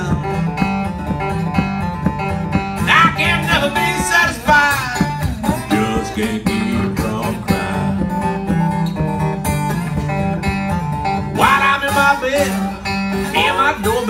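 Delta blues instrumental break on acoustic guitar in open G tuning, a steady bass figure under slide notes that glide up and down in two phrases, one a few seconds in and one near the end.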